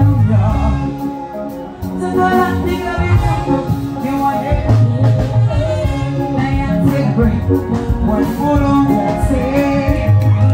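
Live band music with a woman singing into a microphone over bass guitar, guitars, keyboard and drums, with a heavy, pulsing bass.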